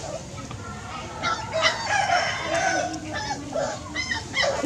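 Chickens calling: a rooster crows with one long call starting about a second in, followed by a run of short repeated clucking calls.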